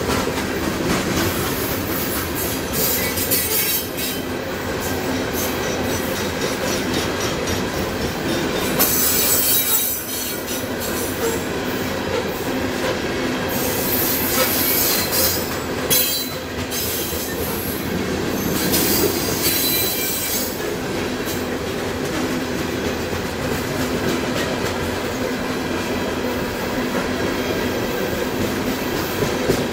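A freight train of open-top steel gondola cars rolling steadily past, with steel wheels clattering over the rail joints. High-pitched wheel squeal rises several times, loudest about nine, fourteen and nineteen seconds in.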